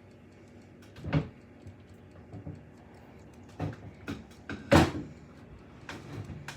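A handful of scattered knocks and thumps, the loudest just before five seconds in.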